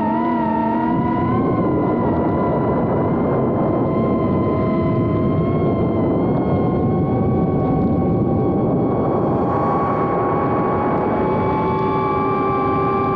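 A 3-inch FPV quadcopter's brushless motors whining over a steady rush of propeller and wind noise. Several close pitches waver together and step up slightly about ten seconds in as the throttle changes.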